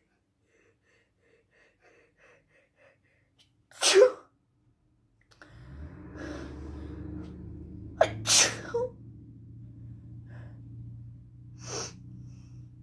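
A person with a bad cold sneezing: faint catching breaths, one loud sneeze about four seconds in, then two sneezes close together about eight seconds in and a smaller one near the end. A steady low hum starts about halfway through and runs under the later sneezes.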